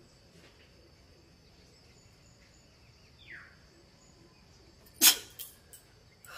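A woman sneezes once, loudly and suddenly, about five seconds in, with two short, smaller sounds right after it. A faint falling chirp comes a little before the sneeze.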